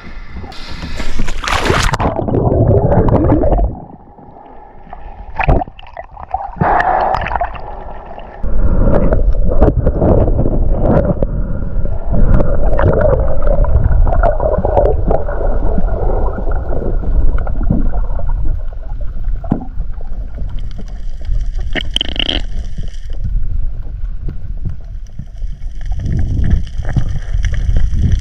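A body plunging into water with a splash about a second in, then the muffled underwater sound heard through an action camera's housing: a continuous low water rumble with gurgling bubbles and occasional knocks.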